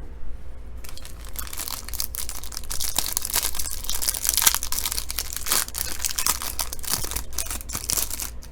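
Trading-card packaging being opened by hand: plastic wrapping crinkling and tearing, a dense crackling run of rustles that starts about a second in.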